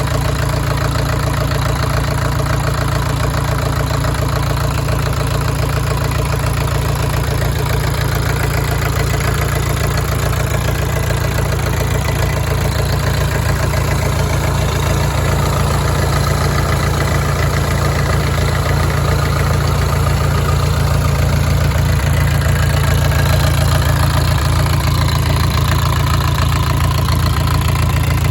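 Brand-new Yangdong YD480 four-cylinder diesel engine of a 14 kVA generator set idling steadily, most of its sound a deep low hum.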